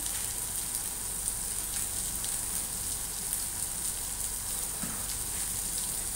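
Green beans sautéing in oil in a nonstick frying pan: a steady sizzling hiss with scattered small crackles.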